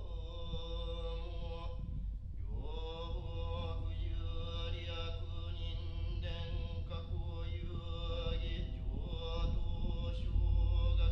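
Slow ambient music: long held tones over a deep low drone, with a few slow slides in pitch, growing louder near the end.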